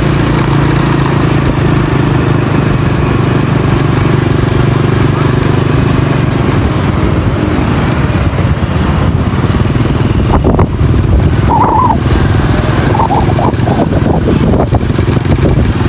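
Motorcycle engine running steadily while riding, with a few brief high tones about twelve and thirteen seconds in.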